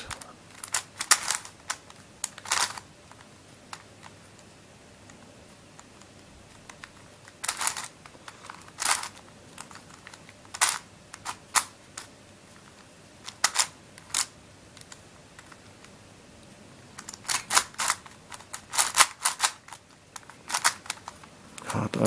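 Witeden Mixup 3x3 puzzle cube turned by hand: short runs of sharp plastic clacks as its layers snap round, with quiet pauses between and a busy flurry near the end. The cube is catching and getting stuck on some moves, which the owner is unsure is right.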